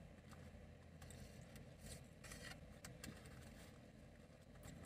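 Near silence inside a car's cabin: a low steady hum, with a few faint soft clicks and rustles from chewing and handling a sandwich.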